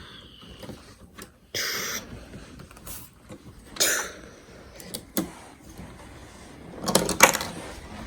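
A child playing with a LEGO set: a few short breathy hisses, then a quick run of light clicks near the end.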